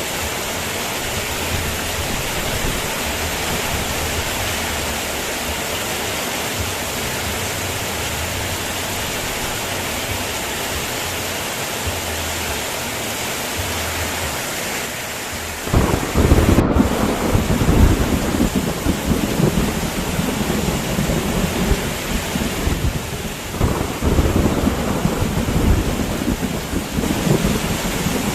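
Steady heavy rain hissing, then about halfway through a loud roll of thunder breaks in suddenly and keeps rumbling over the rain, easing briefly before rolling on again.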